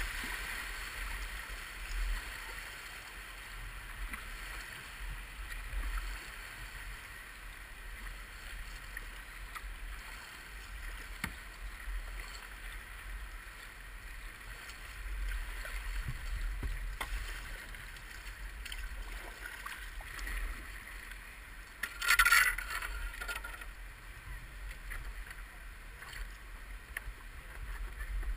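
Moving river water washing and splashing around a boat at the waterline, with a low wind rumble on the microphone; one louder splash about 22 seconds in.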